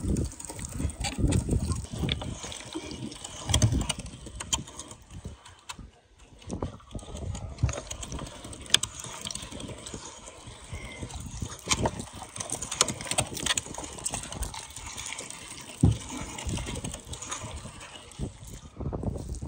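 Hand-cranked meat grinder mincing raw meat: wet squelching as the meat is forced through the plate, with irregular knocks and clicks from the turning crank.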